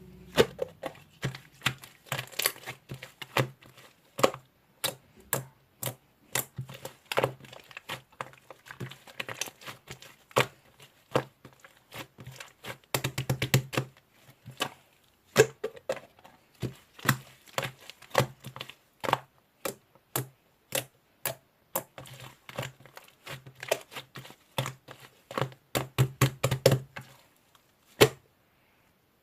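Clear glossy slime being squished and pressed by hand, giving a dense run of irregular sticky clicks and pops that stop shortly before the end.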